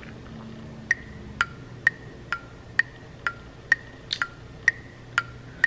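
Steady clock-like ticking, about two ticks a second, starting about a second in.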